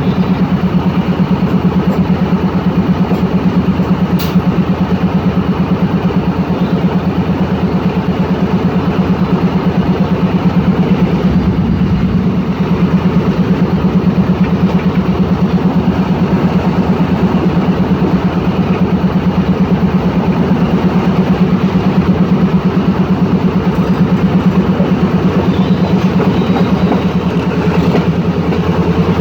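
Diesel-electric locomotive engine (Pakistan Railways ZCU-30 class) running steadily at constant speed, a fast, even, deep throb with no revving.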